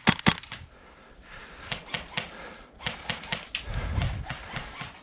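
Airsoft gunfire: irregular sharp clacks, a few at the start, a short lull, then more scattered shots from about two seconds in.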